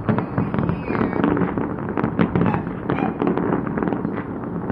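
Fireworks display going off in rapid succession: a dense run of overlapping bangs and crackles over a continuous low rumble, with voices faintly under it.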